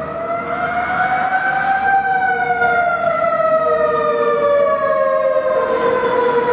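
Emergency vehicle siren wailing, getting louder. Its pitch rises for about two seconds and then slowly falls.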